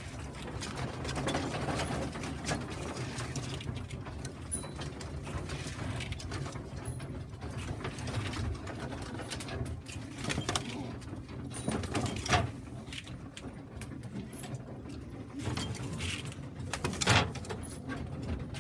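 Dry pigeon grain (depurative mix) rattling as it is scooped and poured out for young pigeons, with a steady scraping clatter and two louder knocks in the second half.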